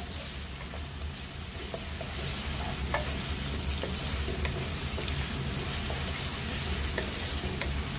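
Sliced onions sizzling in oil in a non-stick wok over a medium flame, stirred with a wooden spatula that gives light scattered taps and scrapes against the pan.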